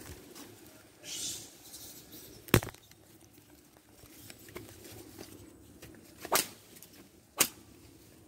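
Handling noise on a phone's built-in microphone as the phone is jostled: a short rustle about a second in, then three sharp knocks against the phone, the first the loudest.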